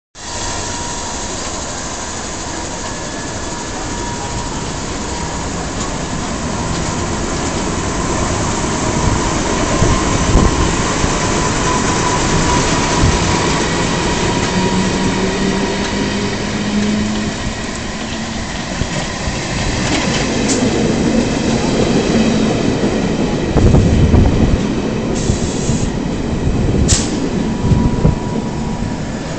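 Two London Underground A Stock trains on the Metropolitan line, one pulling out of the platform and the other running in. About halfway through, a whine rises in pitch as a train accelerates. Heavier wheel clatter follows over the rail joints, with a few short sharp sounds near the end as the arriving train draws up.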